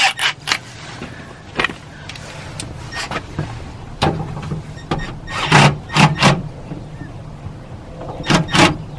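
Knocks and clunks of metal parts being handled and fitted inside a car door shell: the window track and regulator assembly being set back in place. The loudest come in a quick group of three about two-thirds of the way through and a pair near the end, over a steady low hum.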